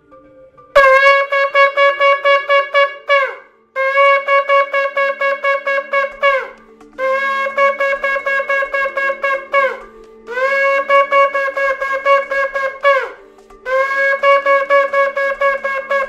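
Shofar blown in five long blasts, each about two and a half seconds at one steady pitch, wavering in loudness and sliding down in pitch as it breaks off. The first blast begins about a second in.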